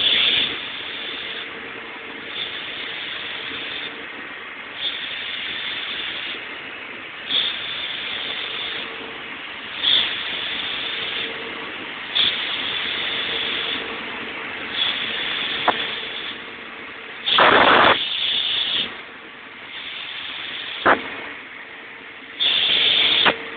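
Sullair 16-100 air compressor running with a loud hiss of air. The hiss surges every two to three seconds over a faint steady hum, with louder blasts of air a little past the middle and again near the end.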